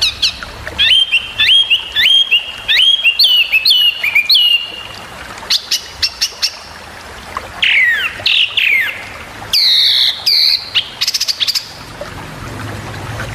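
Small songbird singing sharp, rapid 'tembakan' chirps from a masteran training recording. A quick run of repeated notes, about two a second, fills the first few seconds. Lower sliding notes follow, then a few sharp high calls near the end.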